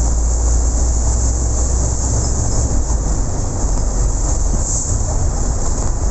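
Steady running noise of a moving vehicle: a continuous low rumble under a constant high hiss.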